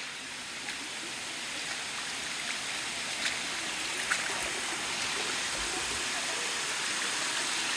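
Water of the Sticky Waterfalls' shallow limestone cascade rushing and splashing in a steady hiss, growing slightly louder, with a few faint clicks.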